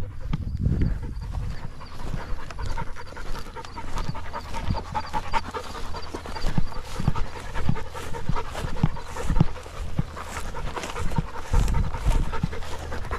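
Labrador retriever panting in a fast, steady rhythm, winded from retrieving doves.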